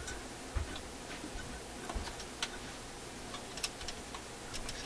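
Irregular small metal clicks and ticks as two fine steel picks tap and scrape against the changer linkage and a small tension spring of a Marconi fold-out record player, with a couple of soft low bumps from handling.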